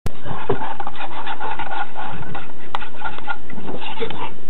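Metal spoon stirring hot cocoa in a ceramic mug, scraping steadily against the mug, with one sharp clink a little past the middle.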